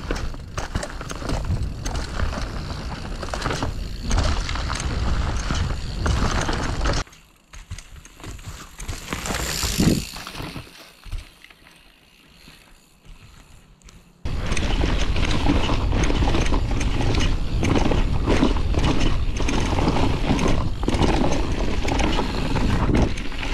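Mountain bike descending a rough trail at speed: tyres over dirt and roots, with the chain and frame clattering and rattling and wind buffeting the microphone as a low rumble. About seven seconds in it drops abruptly much quieter for several seconds, then comes back just as loud.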